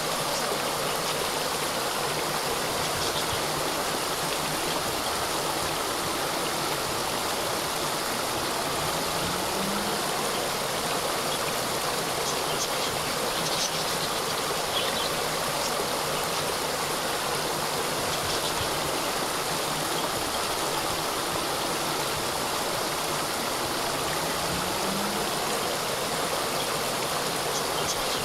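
A small waterfall splashing steadily, an even rush of falling water without a break.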